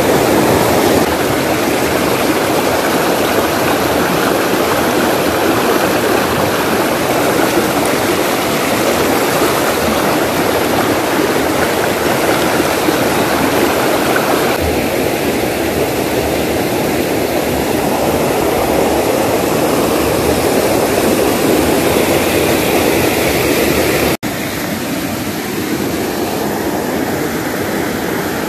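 Shallow rocky stream rushing over boulders in close-up rapids, a loud and steady wash of water. About 24 seconds in it cuts out for an instant and comes back a little quieter.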